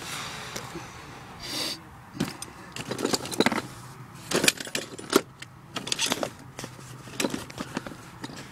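Irregular metallic clicks, rattles and knocks of hands and tools working at the open wiring panel of an outdoor AC condenser, over a faint low steady hum.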